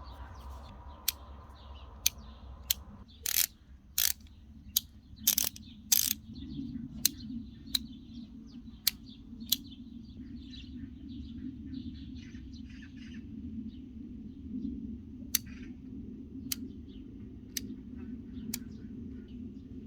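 Sharp metal clicks and clacks from handling the small sockets, bits and ratchet of a precision socket set, about one a second, with a louder cluster a few seconds in.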